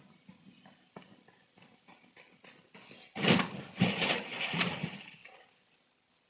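A runaway car crashing over the edge of a driveway: a few faint clicks, then about three seconds in a loud rush of crunching and scraping with two sharp bangs a little under a second apart, dying away over about a second.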